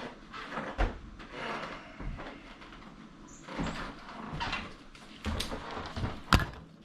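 Pen scratching on the wall in short, irregular strokes as the outline of an electrical box is traced, with a couple of sharp knocks, the loudest near the end.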